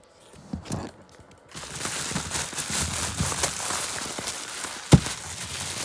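Bubble wrap being handled and pulled open, crinkling and crackling with many small clicks, starting about a second and a half in. A single sharp knock near the end is the loudest sound.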